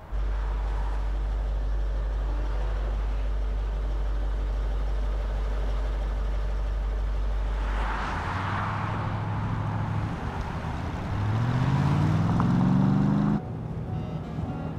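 A deep, steady low drone for about eight seconds, then a Range Rover SUV close by: tyre hiss and an engine note that rises in pitch as it accelerates, cutting off abruptly near the end.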